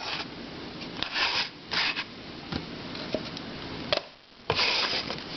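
A plastic puzzle being handled: light clicks and rustles, with several short hissy bursts.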